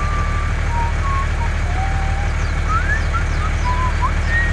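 Truck engine running steadily, a low fast-pulsing rumble, with scattered short high chirps and whistles over it.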